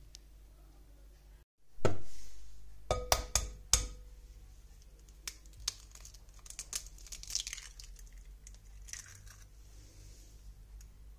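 An egg knocked three or four times against the rim of a glass bowl, the glass ringing briefly, then the small crackle of the shell being pulled apart. One louder knock comes just before the taps.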